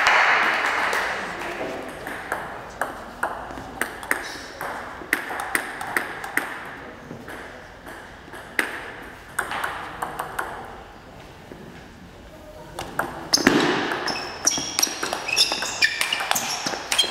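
Table tennis ball clicks: applause dies away, scattered bounces of the ball follow, then about 13 seconds in a fast rally of quick paddle and table hits, with shoe squeaks on the hall floor.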